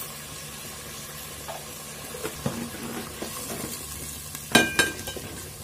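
Onion paste and ginger-garlic paste sizzling in hot oil in an aluminium pot as a wooden spoon stirs and scrapes through it. Near the end come two sharp knocks with a short metallic ring, the spoon striking the pot.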